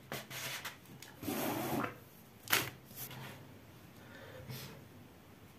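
Handling noises on a table: a short rustle, then a sharp knock about two and a half seconds in and a few lighter taps, as a metal baking tray is set out.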